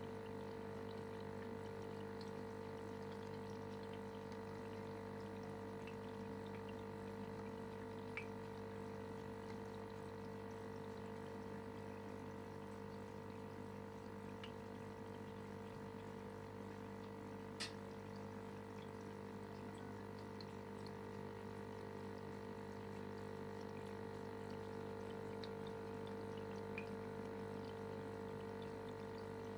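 Aquarium filter pump running with a steady hum over trickling water, with one sharp click a little past halfway.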